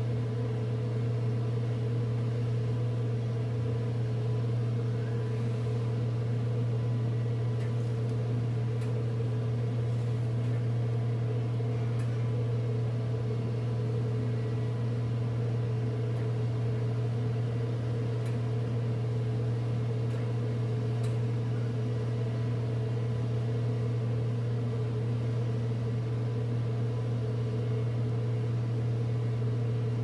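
Steady, unchanging low machinery drone with a fainter higher hum above it, from the ship's and the shore loading plant's machinery during cement loading; a few faint ticks now and then.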